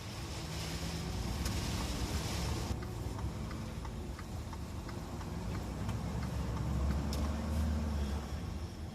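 A motor vehicle running, its low engine hum swelling about six to eight seconds in. A hiss over it stops abruptly about three seconds in.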